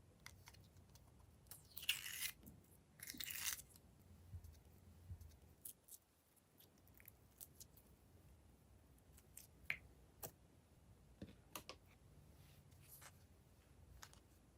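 Quiet hand handling of slime and its mix-ins: scattered small clicks and pops, with two short crackling rustles about two and three seconds in.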